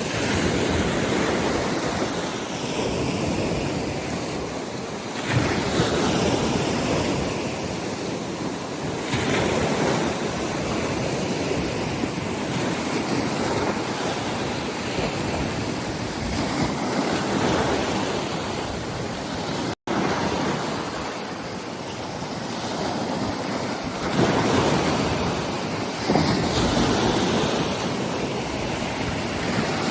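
Wind-driven bay waves breaking and washing ashore in repeated surges, with wind gusting on the microphone. The water is rough enough that the uploader suspects remnants of a hurricane.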